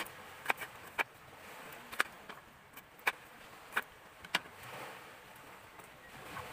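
Kitchen knife cutting garlic cloves on a cutting board: a series of sharp knocks as the blade strikes the board, about one a second and irregular, over a faint steady hiss.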